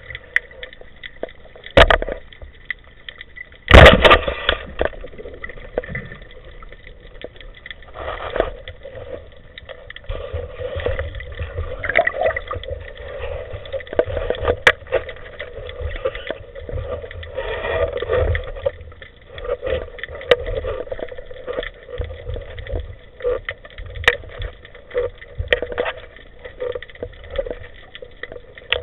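Underwater sound heard through a speargun-mounted camera housing. A sharp knock comes about two seconds in, and a much louder crack about four seconds in is the speargun firing. Then there is muffled water swishing with scattered knocks and scrapes as the spear and line are handled.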